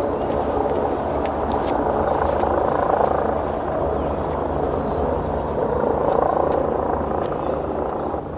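A steady vehicle rumble that swells and eases slightly over several seconds, with faint scattered clicks above it.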